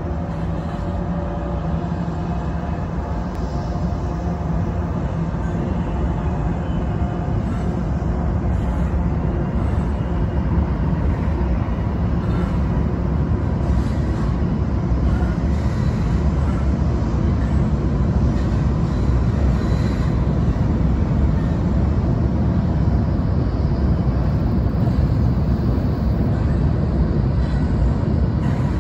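Freight train's diesel locomotives rumbling as they approach and roll onto a steel truss railroad bridge. The low, steady drone slowly grows louder as the train draws nearer.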